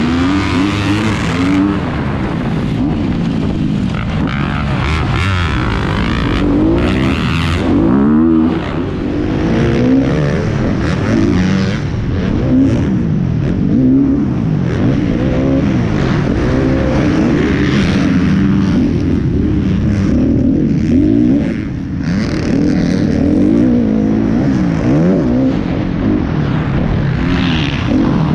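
Motocross bike engine heard from the rider's helmet, its pitch rising and falling again and again as the throttle is opened and closed and the gears are shifted.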